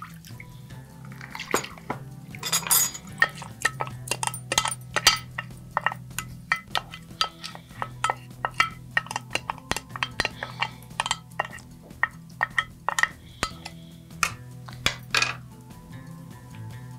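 Soaked rice and its water tipped from a glass dish into a pot of boiling water, splashing about two seconds in. Then a spoon clinks and scrapes over and over against the glass dish and the pot, roughly three times a second, stopping just before the end.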